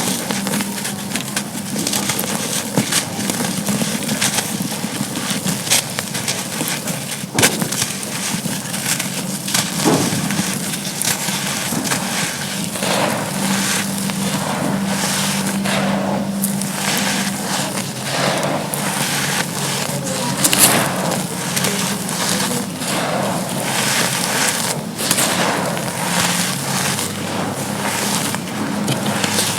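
Dry charcoal chunks being crushed and crumbled, a continuous gritty crunching packed with sharp crackles.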